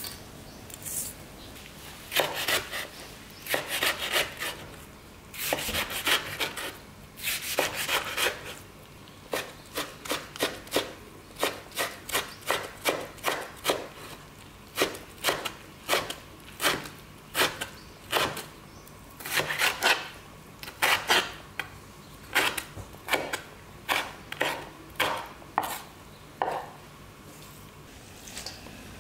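Chef's knife chopping kimchi on a wooden cutting board: a long run of sharp strokes on the wood, about two a second, with some longer scraping sounds near the start.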